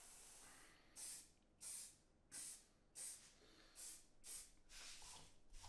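An airbrush hisses steadily and stops just under a second in. Then an aerosol can, most likely hairspray for the chipping technique, gives about seven short sprays at a quick, even pace.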